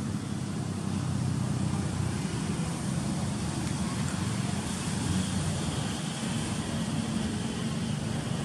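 A steady low engine rumble with a faint hiss on top, running throughout.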